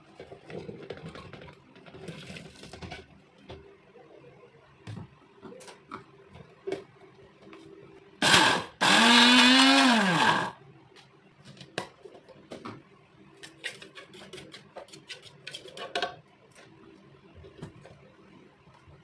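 Countertop blender motor running in two pulses about eight seconds in, a short burst and then about two seconds, chopping chillies and onions into a paste; its pitch drops as it stops. Around it, lighter rustling and clicks of ingredients tipped into the plastic jug and the lid being handled.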